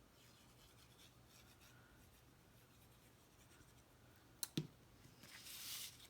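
Faint handling of cardstock pieces being glued in place: light scratching and rubbing, two sharp taps about four and a half seconds in, then a short rub of paper near the end.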